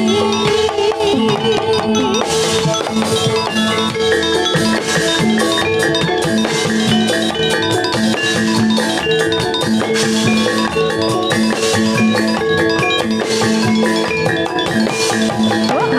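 Javanese gamelan music for Jathilan dance, playing without pause: metallophones struck in a dense pattern over held ringing tones, with drums.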